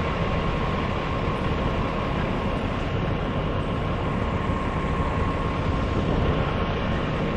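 A machine engine running steadily, with a faint constant whine over the noise.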